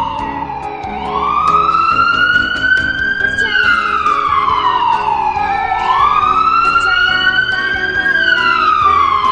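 A siren wailing, its pitch sliding slowly down and up again: it falls, rises about a second in, falls again past the middle, rises, and is falling near the end.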